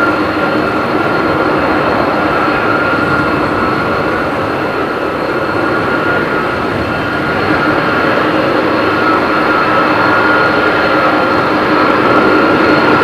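Boeing 747-400 airliner's four turbofan engines running at taxi power as the jet rolls slowly closer: a steady rumble under a held whine. It grows a little louder over the last few seconds.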